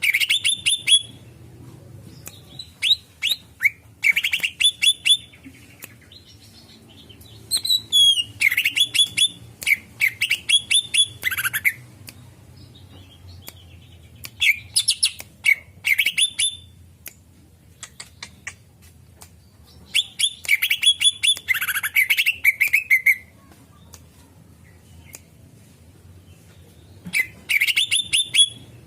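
Cucak ijo (green leafbird) singing: about six bursts of rapid, sharp chattering notes, each one to four seconds long, separated by short pauses.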